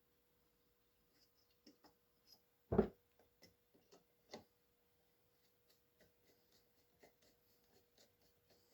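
Small metal clicks and taps as the nut holding the spark arrestor plate on a chainsaw muffler is threaded on and tightened, with one louder knock about three seconds in and a run of faint quick ticks near the end.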